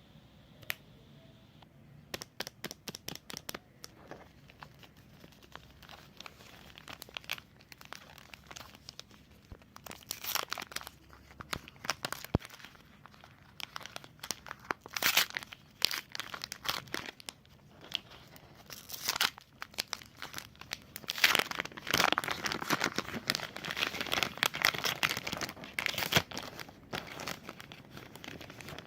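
A knife cutting into a bar of white soap, making crisp crunching, crackling cuts. It starts as a run of quick sharp clicks, then turns into longer, denser crumbling strokes in the second half.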